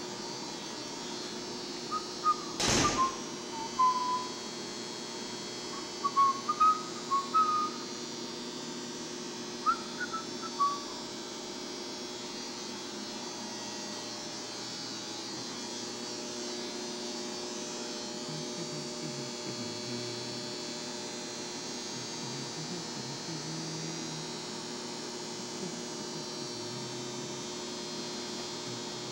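Steady room hum with a few short whistled notes, some sliding in pitch, scattered between about 2 and 11 seconds in, plus one sharp click near 3 seconds.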